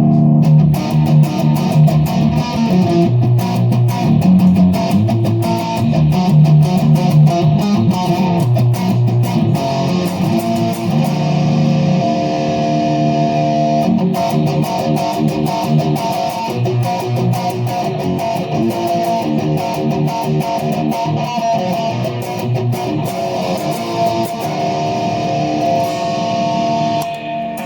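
Epiphone Les Paul SL electric guitar fitted with a Fender humbucker pickup, played with picked notes and strummed chords. The playing settles into longer held notes later on and starts dying away at the very end.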